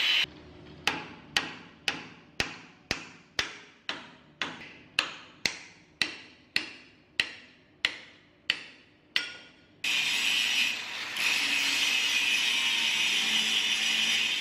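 An angle grinder on a steel motorcycle frame cuts out. Then a hammer strikes the steel frame at the old engine-mount bracket about sixteen times, roughly twice a second, and each blow rings out briefly. About ten seconds in, the angle grinder starts again and grinds the frame tube steadily.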